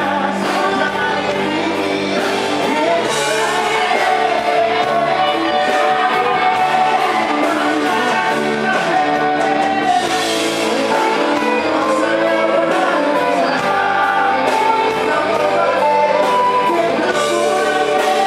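Live band playing with a woman and a man singing into microphones over electric guitars, bass, keyboards and drums, amplified through a stage sound system.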